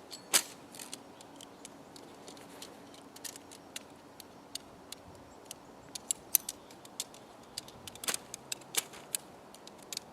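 Lightweight tent poles and hardware being handled during setup: irregular sharp clicks and light rattles, a few louder snaps among them.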